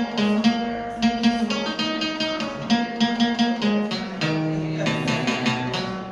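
Archtop hollow-body electric guitar played solo, a passage of picked chords and single notes with no singing.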